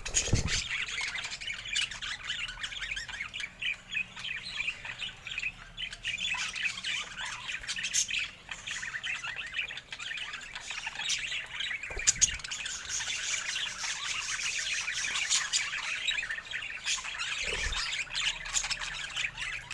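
Budgerigars chattering and warbling without pause, in a dense stream of rapid high calls, with a few sharp clicks and a couple of brief low thuds.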